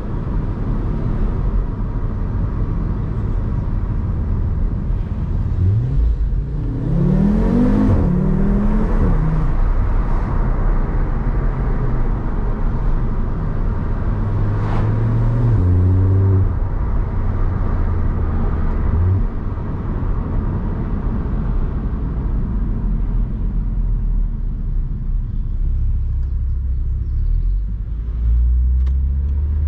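Car engine running with a steady low drone; about six seconds in it revs up with a rising pitch a few times, and it changes pitch again briefly about halfway through.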